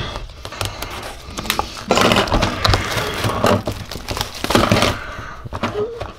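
Clear plastic shrink wrap being pierced and torn off a cardboard booster box, crinkling and crackling in irregular bursts. The loudest tearing comes about two seconds in and again about four and a half seconds in.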